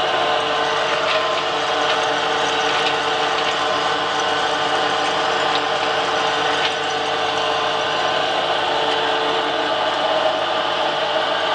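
Home-built flat-die pellet mill with a 160 die running steadily: a 4 kW, 1500 rpm electric motor driving it through a Zhiguli car gear reducer, with a steady whine of several tones as feed mix is pressed into 4 mm pellets. A few faint ticks come through the run.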